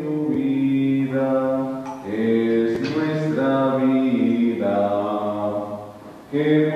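Offertory hymn sung slowly in long held notes, with a short pause between phrases every couple of seconds. A single light click sounds about three seconds in.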